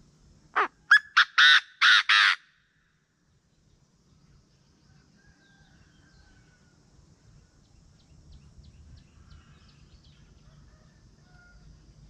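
Caged decoy Chinese francolin calling once, a loud, harsh series of about six notes over roughly two seconds: a short rising first note, quick short notes, then two longer ones. Faint small-bird chirps follow.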